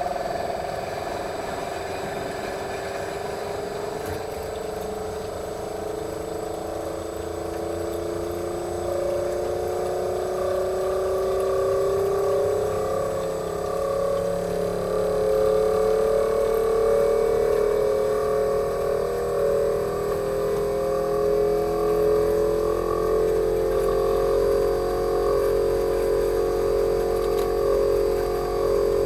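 Inverter compressor in a Fujitsu General AO-C28H heat-pump outdoor unit running in defrost mode, speeding up slowly: a steady hum of several tones that glides gradually higher in pitch and grows a little louder.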